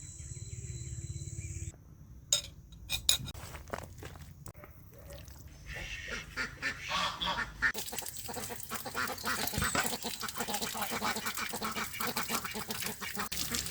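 Ducks quacking, many short calls overlapping from about six seconds in, after a few sharp knocks.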